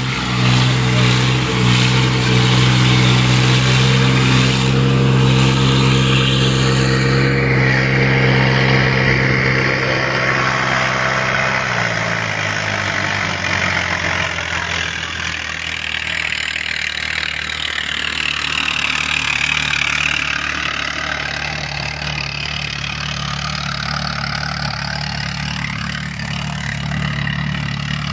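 Diesel tractor engines held at high revs under heavy load while the tractors pull against each other on a chain, a loud steady drone. About twelve seconds in the revs drop and the engine runs on lower and quieter.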